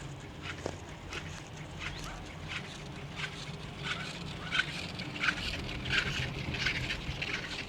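Chairlift ride: the lift machinery hums steadily under a run of short sharp clacks, about two to three a second, which grow louder in the second half.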